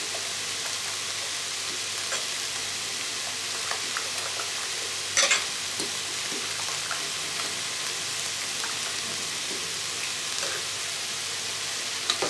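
Chicken pieces and mushrooms sizzling steadily in a multicooker pot on its frying mode, with scattered small crackles and one sharp click about five seconds in. A few more clicks near the end as the food is stirred.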